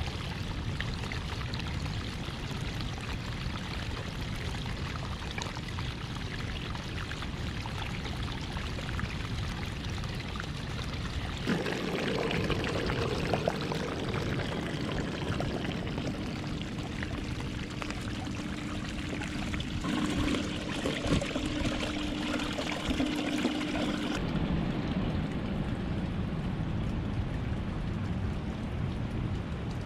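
Water pouring and splashing through a gold sluice box, fed by a bilge pump through a hose, a steady rush of running water. A steady low hum joins about a third of the way in and stops about two-thirds through.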